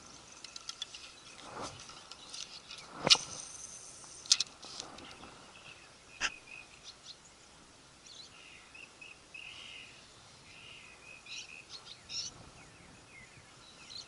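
Outdoor riverbank ambience: birds chirping in short calls, busiest in the second half, with three sharp clicks about three, four and a half, and six seconds in.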